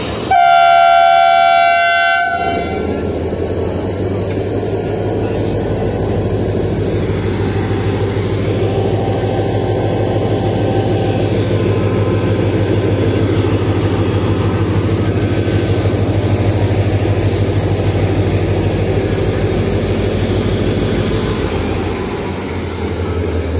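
Pakistan Railways HGMU-30 diesel-electric locomotive sounding its horn in one chord blast of about two seconds, then its engine running loudly with a steady high whine as it pulls the train away at walking pace.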